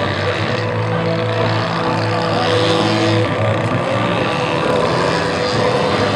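Radio-controlled aerobatic model plane's engine and propeller running steadily, the pitch shifting a little as the plane manoeuvres.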